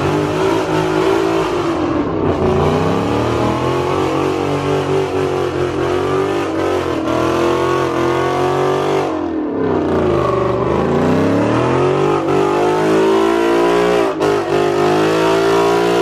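Car doing a burnout: its engine is held at high revs, with the revs dropping and climbing back about two seconds in and again, more deeply, around ten seconds in.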